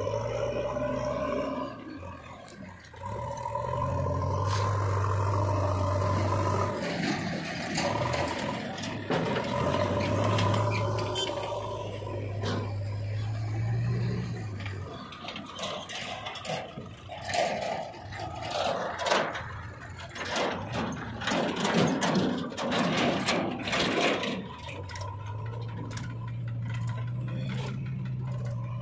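Diesel engines of a JCB 3DX backhoe loader and farm tractors running, with a steady engine hum that comes and goes. Through the middle stretch there is a run of clattering and scraping, typical of soil being dumped from the loader bucket into a steel tractor trolley.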